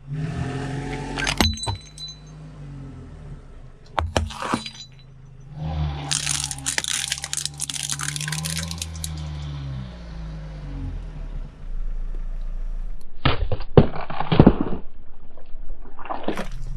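A car crushing brittle objects under its tyre while its engine runs at a low idle: a few sharp cracks, then a long stretch of crunching and shattering as baubles burst under the tyre on a board of upright nails, and heavy cracking bursts near the end.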